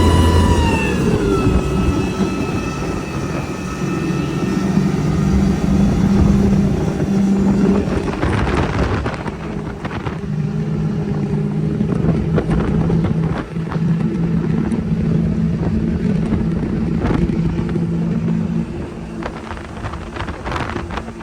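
Triple Mercury 400R V8 outboards running hard on a 36-foot Avanti center console, a steady engine drone with a higher whine that drops in pitch about a second in. From about eight seconds on, rough rushing noise and irregular buffeting mix in with the engines.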